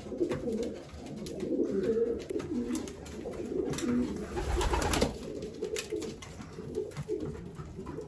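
Racing pigeons cooing in the loft, several low coos overlapping throughout. A short burst of noise comes about four and a half seconds in.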